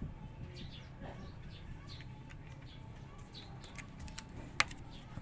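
A bird chirping over and over, short high chirps about twice a second, with one sharp click about four and a half seconds in.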